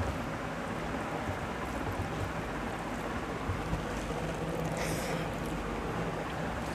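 Steady background noise with a brief higher-pitched rustle about five seconds in.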